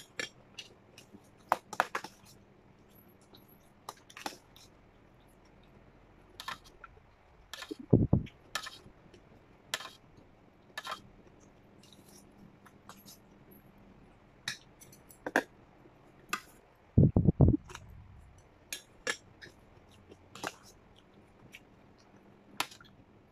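Close-up eating sounds: chewing and mouth smacks mixed with scattered sharp clicks of a spoon and fingers against stainless steel bowls and a plate. Two louder low thumps stand out, about eight seconds in and again near seventeen seconds.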